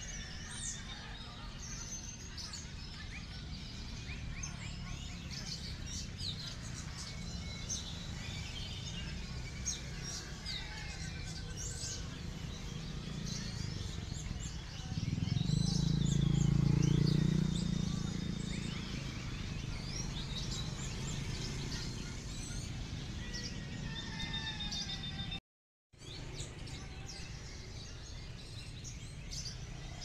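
Many songbirds singing and chirping over one another, a dense mix of short whistles, trills and chirps. A low rumble swells and fades in the middle, and the sound cuts out for half a second near the end.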